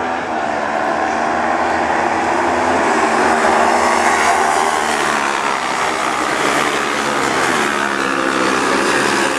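Several small single-seater autocross buggies racing on a dirt track, their engines revving hard and overlapping, rising and falling in pitch as the cars accelerate and slow through the corners.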